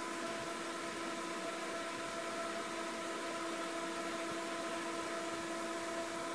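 Steady mechanical hum and hiss from a motor or fan running, with several steady tones and no change in level.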